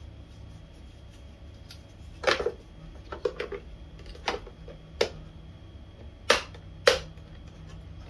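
Hard plastic clicks and knocks as a filter plate is pushed and seated into its holder in a Bosch GL-30 vacuum cleaner's body: about seven sharp clicks spread over several seconds, the last two among the loudest.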